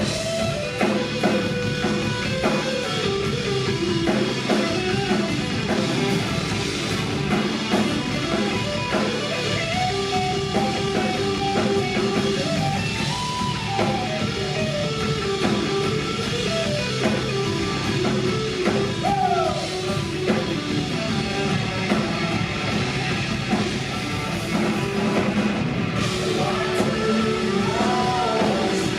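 Live rock band playing an instrumental passage: drum kit and guitars, with a lead line of held notes that bend and slide in pitch.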